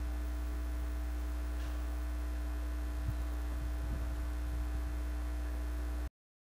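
Steady electrical mains hum with no other sound, cutting off abruptly into dead silence about six seconds in.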